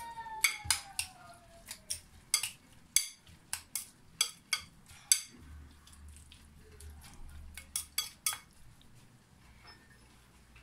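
A metal spoon clinking and scraping against a glass bowl while chopped tomato salad is stirred: irregular sharp clinks, frequent for most of the stretch and thinning out near the end.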